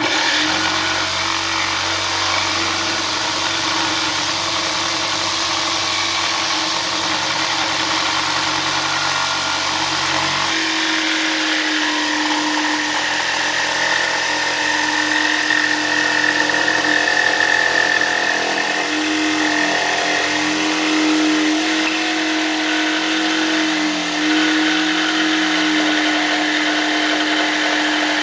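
Electric power saw running steadily while cutting a wooden push stick. It makes a loud, continuous mechanical whine, and its sound shifts about ten seconds in as the lowest hum drops away and a steady tone comes forward.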